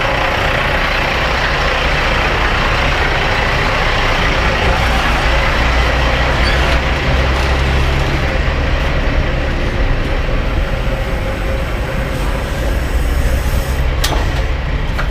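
Semi truck's diesel engine running while the rig is driven, a steady loud mix of engine and road noise, with one sharp click near the end.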